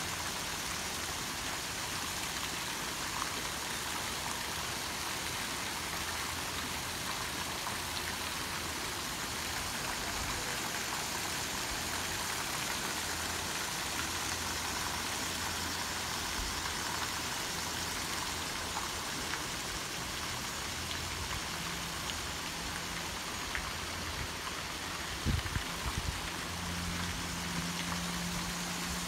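Steady hiss of running and splashing water from garden fountain jets and cascades. A few brief knocks come near the end.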